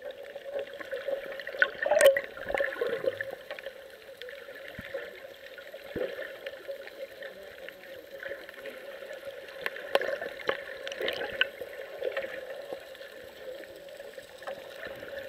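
Muffled underwater sound picked up by a submerged camera: a steady gurgling wash of moving water with scattered sharp clicks and knocks, the loudest about two seconds in.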